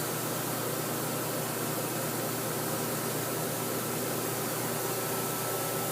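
Steady background hum and hiss of a machine shop, even throughout, with a few faint steady tones and no distinct events.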